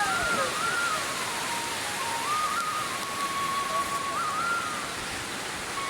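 Steady water noise, with a thin, high melody that holds notes and steps up and down between them.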